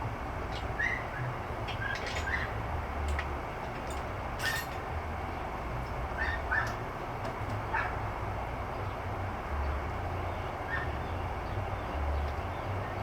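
Scattered short bird chirps, a dozen or so, over an uneven low rumble.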